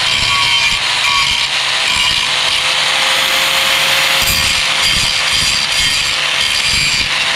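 Angle grinder running steadily, its disc grinding the cut end of a motorcycle's metal underbelly exhaust to level it off. A steady motor whine sits over dense grinding hiss.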